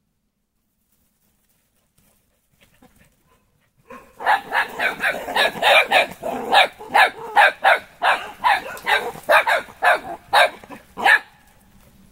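Puppies yapping and barking in play: a rapid run of short, high barks, about two to three a second, beginning about four seconds in after near silence and stopping shortly before the end.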